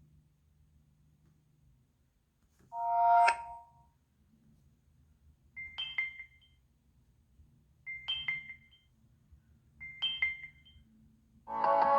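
Samsung Galaxy A40 ringtones: a short chime about three seconds in, then a short high two-note beep played three times about two seconds apart, and a new, fuller ringtone starting near the end.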